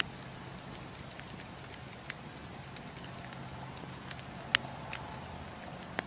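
Wood campfire crackling: a steady hiss of burning with scattered sharp pops, the loudest about four and a half seconds in.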